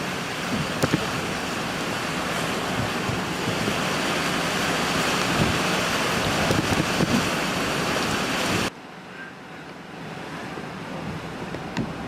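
Hurricane wind blowing hard, a loud steady rush with a few knocks in it. About nine seconds in it cuts off abruptly to a quieter rush of wind.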